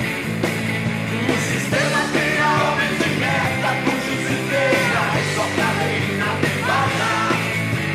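Blues-rock band music playing, with a steady bass line under bending melodic lines.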